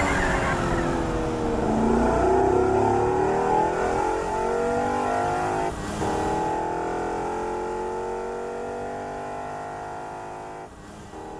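A drift car's engine revving: its pitch drops and then climbs slowly and steadily, with short breaks about six seconds in and near the end, fading out toward the close.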